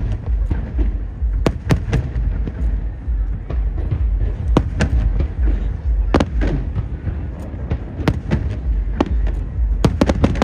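Aerial fireworks bursting: many sharp bangs and cracks in quick, irregular succession over a continuous low rumble.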